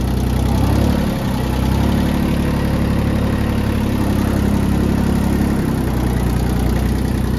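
Iseki Landhope 147's small three-cylinder Mitsubishi diesel running steadily as the tractor backs up in reverse. The engine note rises a little about a second in and settles back down shortly before the end.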